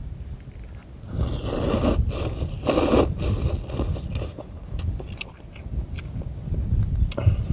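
A person slurping up instant noodles in two long, noisy slurps, then chewing with small wet clicks. A low wind rumble on the microphone runs underneath.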